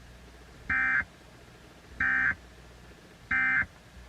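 Emergency Alert System end-of-message data signal: three short bursts of warbling digital tones, about 1.3 seconds apart, marking the end of a broadcast severe thunderstorm warning.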